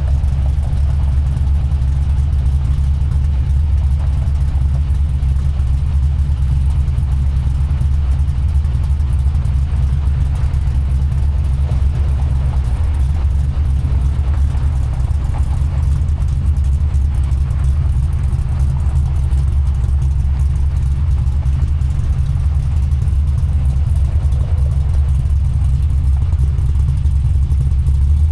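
A vehicle engine running steadily, a deep, constant low rumble with no changes in pitch.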